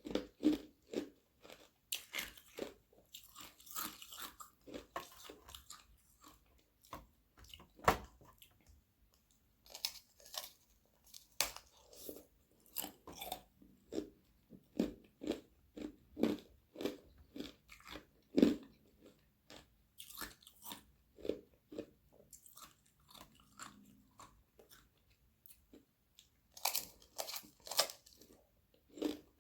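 Close-up crunching and chewing of thin sheets of frozen carbonated-water ice: a run of irregular crisp cracks and crunches, with two louder sharp bites about 8 and 18 seconds in.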